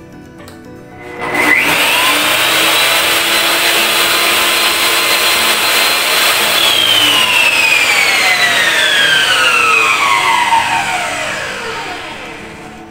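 Bosch GTS 10 J table saw test-run with no load: its universal motor starts about a second in and comes up to speed with a high whine. It runs steadily for about five seconds, then is switched off and coasts down, the whine falling in pitch and fading over the last five seconds.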